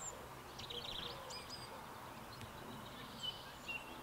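Faint outdoor ambience with small birds chirping now and then: scattered short high chirps, and a quick run of repeated notes near the end.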